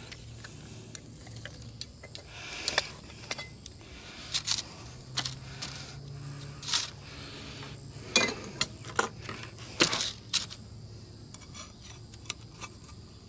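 Metal pie iron (campfire sandwich maker) being unlatched, opened and handled over a plate: a string of sharp metallic clicks and clacks from its hinged halves and long rods, with several close together in the second half.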